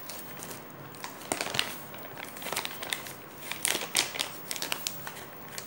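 Thin plastic bag crinkling in the hands in irregular bursts as it is handled and tipped out over a bowl, loudest about one and a half and four seconds in.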